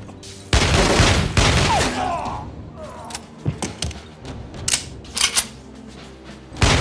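Film-soundtrack pistol gunfight: a dense burst of gunfire and impacts in the first couple of seconds, then about five single pistol shots fired a half-second to a second apart.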